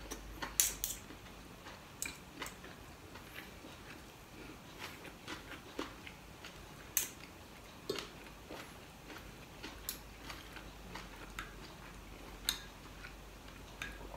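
Metal spoon and fork clinking and scraping on a ceramic dinner plate: scattered light, irregular clicks and taps, with a few sharper clinks.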